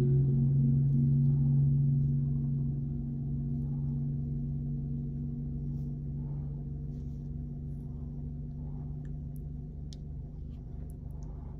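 A low, steady ringing tone with several overtones, fading slowly over about ten seconds, with a few faint ticks near the end.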